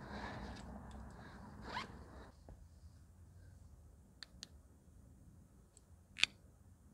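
A Superdry backpack's zip being pulled open with rustling of the fabric for about the first two seconds. After that come a few sharp clicks as a small handheld torch is handled, the loudest single click near the end.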